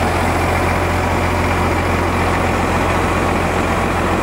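A heavy truck engine idling steadily, a constant low drone with no change in speed.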